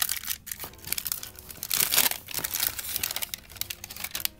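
Foil wrapper of a 1991 Upper Deck basketball card pack crinkling and tearing in irregular bursts as it is ripped open by hand and the cards are pulled out.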